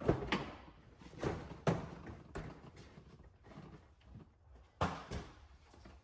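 Irregular clunks and knocks of work on a damaged car body, about seven sharp hits spread unevenly, the loudest near the start and just before the end.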